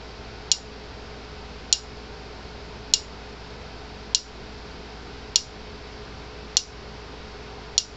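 Gallagher M400 electric fence energizer pulsing a spark across needle-nose pliers held to its fence and earth terminals: a sharp snap about every 1.2 seconds, seven in all. The snaps show the repaired charger giving a nice hot shock.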